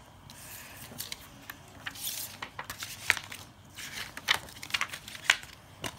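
Handling noise from a plastic Blu-ray case and its paper insert: scattered sharp clicks and short rustles at irregular moments.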